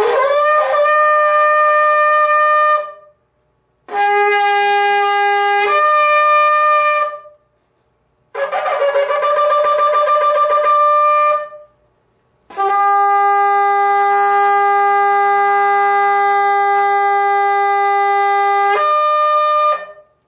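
A long shofar (ram's-horn trumpet) sounded in four blasts with short breaths between. The second and last blasts jump up to a higher note near their end, the third opens with a wavering, broken sound, and the last is the longest, about seven seconds.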